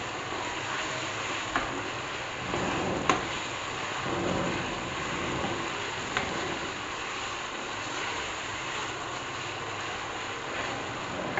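Chicken pieces frying in oil in an aluminium pot, a steady sizzle, with a few sharp taps as the ladle knocks against the pot while stirring.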